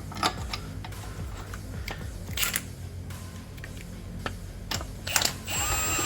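Scattered light metallic clicks and taps of hand tools and bolts being handled and threaded while a new front hub bearing is bolted on, with a short whirring burst near the end.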